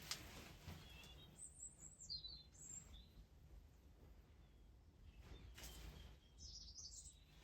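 Near silence with faint birdsong: a few short, high chirps about a second and a half in and again near the end, with a couple of faint rustles.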